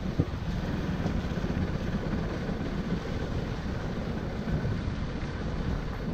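Motorcycle running along a rough dirt road: a steady engine and road rumble with many small jolts as the bike rides over ruts and loose stones, and one sharp knock about a quarter second in.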